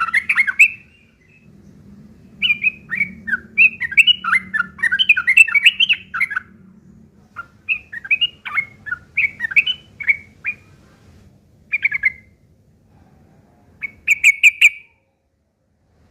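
Yellow-vented bulbul singing a rough, rapid chattering song worked through with imitations of long-tailed shrike calls. It comes in several bursts of quick, jumping notes separated by short pauses, ending with one brief burst.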